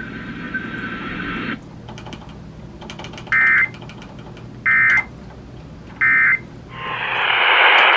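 Emergency Alert System end-of-message code: three short identical bursts of warbling digital data tone, about a second and a half apart, marking the end of a severe thunderstorm warning broadcast. Radio hiss cuts off just before the bursts and rises again near the end.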